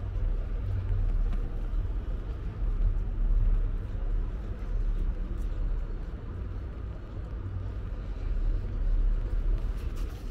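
City street traffic: a steady low rumble of passing vehicles that swells now and then.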